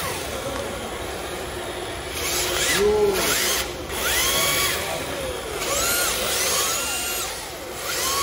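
Electric RC drift cars' motors whining in repeated rising and falling glides as they are throttled up and off through the drifts, with the loudest rev about three seconds in. Beneath the whine is a steady hiss of hard drift tyres sliding on the concrete floor.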